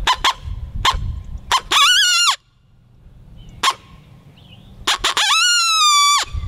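Primos Lil Dog open-reed coyote howler blown in a challenge howl pitched as a younger coyote: a few sharp short barks, then a wavering howl that drops off at the end, then more barks and a second, longer howl that also drops off.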